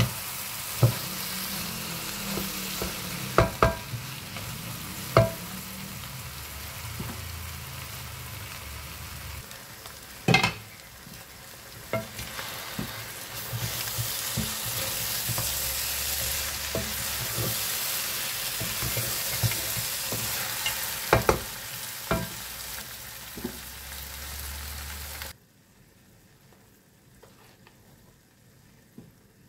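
Mutton curry frying with a steady sizzle as it is stirred with a wooden spatula in a nonstick pot, the spatula knocking sharply against the pot about ten times. The sizzling cuts off suddenly near the end, leaving only a faint background.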